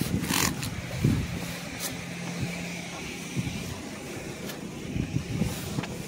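A car engine idling with a steady low hum. About half a second in there is a short hiss of a spray bottle, and a few light clicks and rustles follow.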